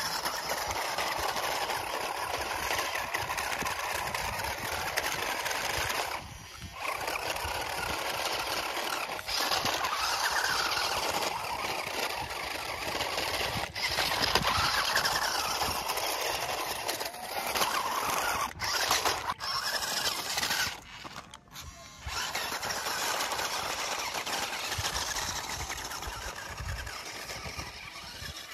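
4WD RC rock crawler's electric drive motors whining under load as it climbs a gravel slope, the pitch rising and falling with the throttle and cutting out briefly twice.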